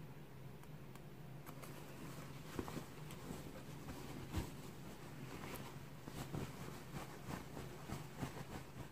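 Cotton dust bag being handled and unfolded by hand: soft fabric rustling and scratching that grows busier after the first second or so, over a faint steady low hum.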